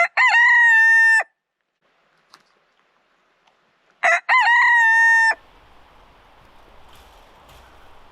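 A rooster crowing twice, about four seconds apart, each crow a short note followed by a long held one.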